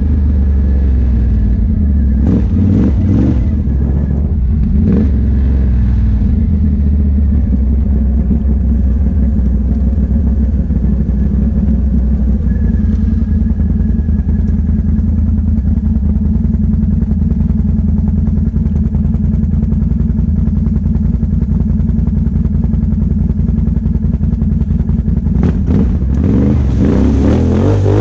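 Can-Am Outlander 1000 ATV's V-twin engine running steadily as it rides along a dirt trail, with some clatter over bumps a few seconds in. Near the end the sound turns rougher and noisier as the ATV drives into a mud hole and throws up mud.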